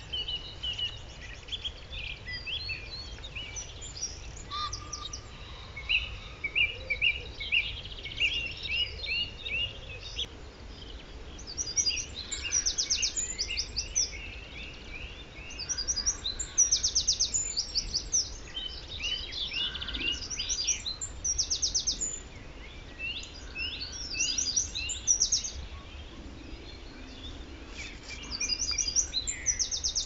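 Farmland birdsong: a wren sings loud bursts of rapid high trills again and again, over song thrushes repeating their phrases. A chaffinch's descending jumble of notes sounds in the background.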